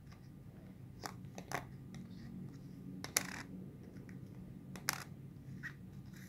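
Small copper-plated steel euro cent coins being flipped over by hand on a plastic lid: a few sharp light clicks as they are picked up and set back down, the loudest about three seconds in.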